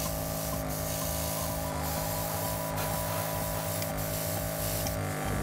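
Iwata Neo Air mini oil-less compressor running steadily on its slowest speed setting while feeding an airbrush. It makes an even hum whose pitch dips briefly a few times.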